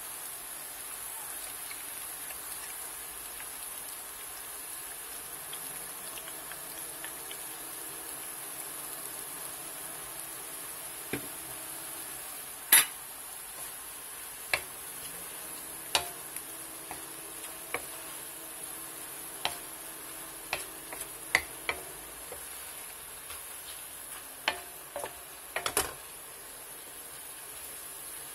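Mushrooms and mixed vegetables sizzling steadily in butter in a non-stick wok, with a wooden spatula knocking against the pan in a dozen or so sharp, irregular clicks from about eleven seconds in, the loudest a little before halfway.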